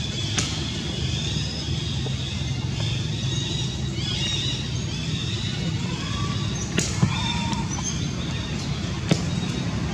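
Outdoor ambience: a steady low rumble with high chirping calls over it, and a few sharp clicks, two of them a little after the middle.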